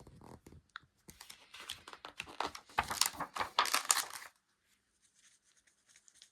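Paper pages of a book being handled and turned: a burst of crackling, crinkling rustle about a second in that lasts some three seconds, then only a few faint rustles.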